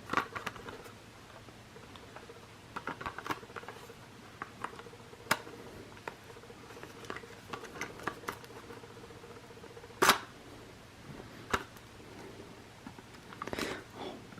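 Toy packaging being handled and opened by hand: scattered plastic and cardboard crinkles and clicks, with one sharp snap about ten seconds in.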